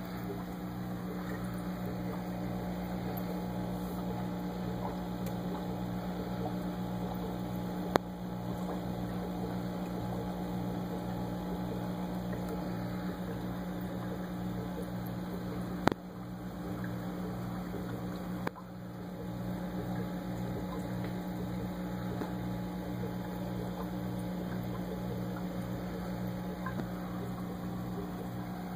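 Aquarium air pump humming steadily, with the bubbling of the air stream rising through the volcano ornament. Two sharp clicks, about 8 and 16 seconds in.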